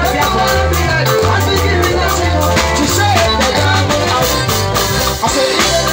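Live band music: a woman and a man singing into microphones over electric guitar and keyboard, with a heavy, moving bass line and steady percussion.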